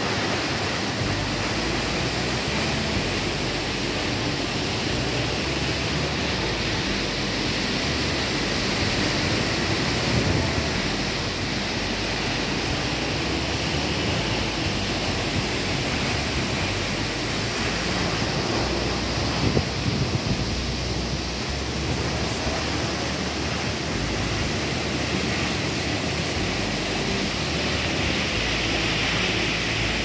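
Steady rush of falling water from a tall waterfall about 84 m high.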